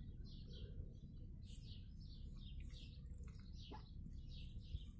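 Faint chirping of small birds: a steady run of short, high chirps, two or three a second.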